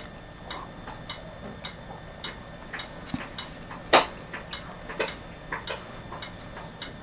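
Steady light ticking, about two ticks a second, with two louder sharp clicks about four and five seconds in.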